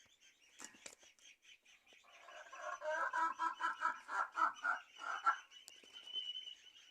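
Poultry calling in a dense run of rapid, overlapping calls for about three seconds in the middle, over a steady rapid high-pitched chirping.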